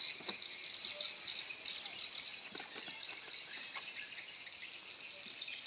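Steady, high-pitched chorus of insects, a dense shrill buzz, with a few faint clicks.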